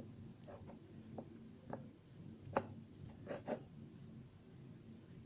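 Hands kneading a sticky homemade slime of shampoo, toothpaste and salt: a few faint, soft sticky smacks and clicks, the mixture still clinging to the fingers.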